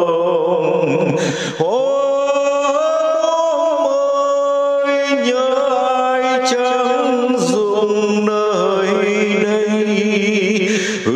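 A voice singing a Vietnamese song in long, held, wavering notes, with brief breaks for breath about a second and a half in and near the end.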